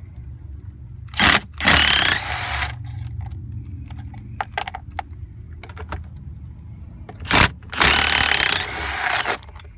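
A power driver spinning in two bursts of about a second each, each starting with a sharp click, backing out the two remaining 8 mm screws of the heater control unit. Light clicks and rattles of the screws and parts come between the bursts.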